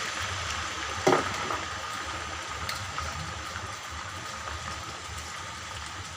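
Chicken adobo cooking in a pan, a steady bubbling, sizzling hiss, with one sharp knock about a second in.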